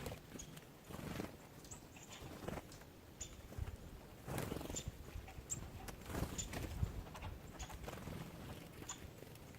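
Small birds at a feeder giving short, high chip calls every second or so, mixed with scattered light knocks and clicks.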